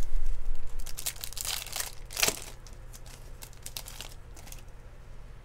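A foil trading-card pack being torn open and crinkled by hand: a run of sharp crinkling tears, the loudest about two seconds in, stopping a little after four seconds.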